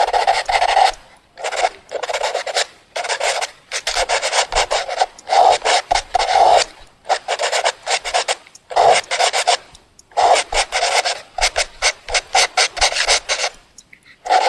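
Fast drawing: a drawing tool scratching quickly back and forth across paper. The rasping strokes come in bursts of one to two seconds with short pauses between them.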